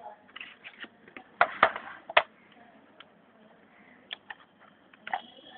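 Sharp clicks and knocks from the braille upwriter being handled: three loud ones close together about one and a half to two seconds in, then a few scattered lighter clicks.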